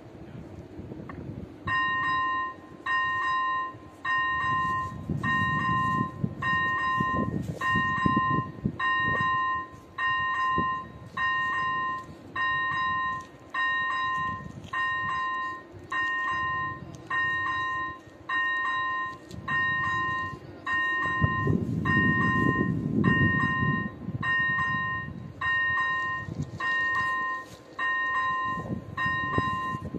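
Railway level-crossing warning bell starts up about two seconds in and rings steadily, about one two-pitched ding a second: the crossing has been activated for an approaching train. A low rumble swells twice underneath.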